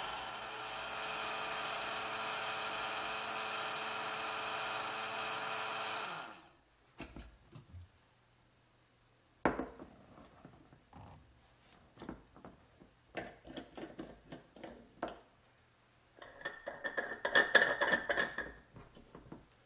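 Danmi DA-BLS01 mini tumbler blender's motor running steadily while blending a smoothie, cutting off about six seconds in when the hand-held lever is released. Then plastic clicks and knocks as the jar is lifted off the base and the blade unit unscrewed, with a sharp knock near the middle and a scraping rattle near the end as a cap lid is twisted onto the jar.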